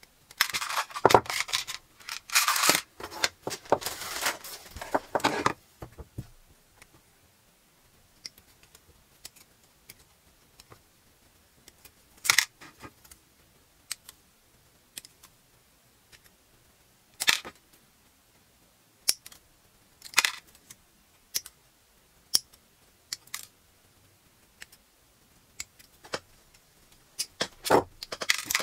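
Small plastic model-kit parts clattering and rustling as hands sort through them in a plastic tub, for about the first five seconds. After that, scattered sharp plastic clicks as parts and runners are handled.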